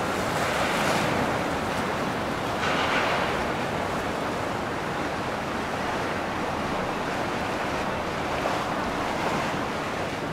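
Steady rush of water and wind noise with no engine tone, swelling briefly three times.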